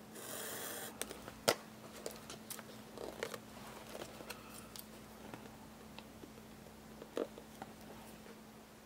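An X-Acto knife lightly slitting an air bubble in wallpaper collaged into a spiral sketchbook: a short hiss at the start, then scattered small clicks and scratches of blade and fingers on the paper, the sharpest about a second and a half in and again near the end.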